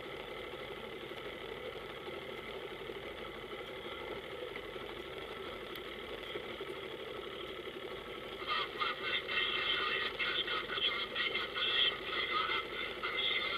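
Boat engine idling steadily. About eight seconds in, a louder, tinny, choppy voice from a marine radio starts over it.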